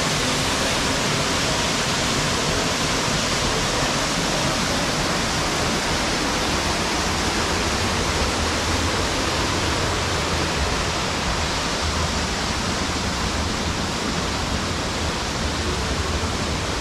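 Water of a creek waterfall rushing over rocks: a loud, steady, even rush with no changes.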